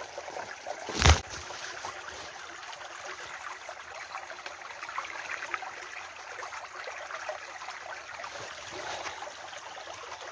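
Small shallow creek trickling steadily over stones and leaf litter close to the microphone, with a single loud knock about a second in.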